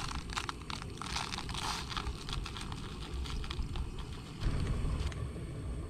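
Ground coffee being poured from a glass jar into a paper filter in a pour-over cone: a dense gritty patter of quick ticks and rustles, busiest in the first few seconds, over a low rumble.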